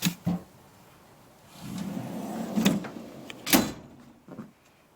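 Steel drawers of a Snap-on roll-cab tool box being slid along their runners and banged shut: two quick knocks, then a rolling slide of about a second ending in knocks, the loudest about three and a half seconds in.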